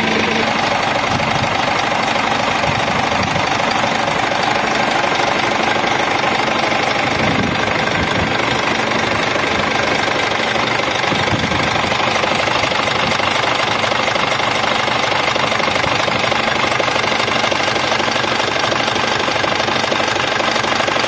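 Scania R 450's 13-litre straight-six diesel engine idling steadily, heard close up in the engine compartment.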